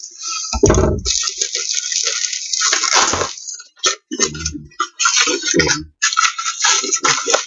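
A mailed package being torn open: several bursts of ripping packaging, with short pauses between tears and a thump about half a second in.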